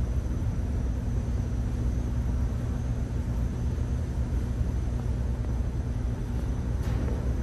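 Steady low drone of a car ferry's engines and shipboard machinery, a constant low hum with a faint high whine above it.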